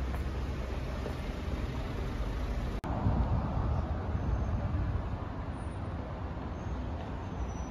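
Street ambience with road traffic: a steady low rumble of cars, no voices. There is an abrupt break a little under three seconds in, after which the traffic sound is slightly louder.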